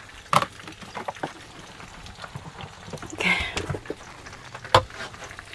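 Camper van overhead cupboard doors and latches clicking and knocking as they are opened and shut, with a short rustle of rummaging about three seconds in.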